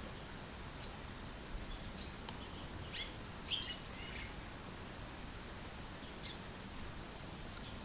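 Red-rumped swallow (Cecropis daurica) singing: a short burst of high chirps and twitters from about a second and a half to four seconds in, then a few scattered single notes, over steady low background noise.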